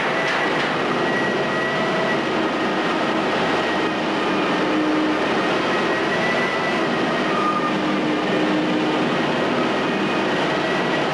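Menck cable-operated crawler excavator demolishing a masonry building: a steady, dense din of machinery and crumbling masonry, with faint thin squeals coming and going.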